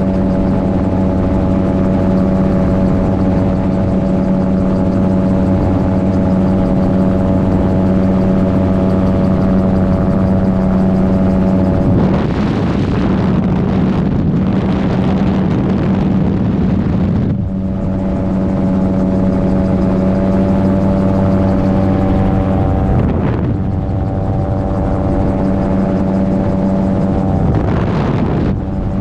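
Gyroplane engine running at a steady pitch in flight, heard from on board. For several seconds in the middle, and briefly twice more near the end, a rushing noise like wind on the microphone swamps the engine tone.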